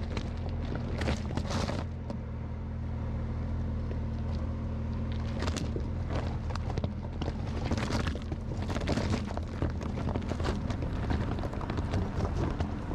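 Porsche 911 Dakar's twin-turbo flat-six running steadily on an off-road drive, under a busy layer of crackling tyre and chassis noise with scattered sharp knocks and a few louder surges of rushing noise.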